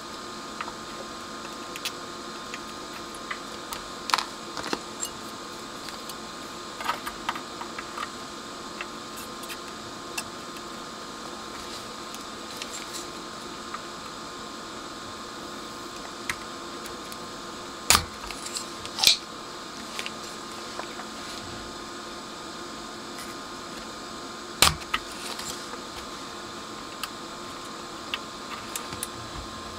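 Scattered small clicks and taps of metal hand tools and tweezers against a circuit board during hand soldering, three of them louder, two close together past the middle and one later. A steady faint hum runs underneath.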